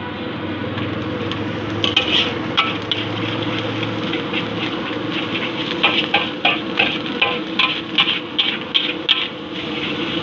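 Metal spatula scraping and clacking against an aluminium wok while fried rice is stirred and tossed, over a steady frying sizzle. The strikes begin about two seconds in and come quickly and close together from about six seconds in until near the end.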